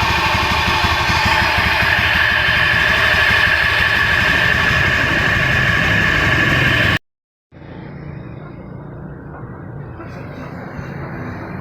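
Honda Beat eSP scooter's single-cylinder engine running with a rough, snoring ('ngorok') noise, the fault the owner brought it in for, over a steady high whine. It cuts off abruptly about seven seconds in, leaving a much quieter background hum.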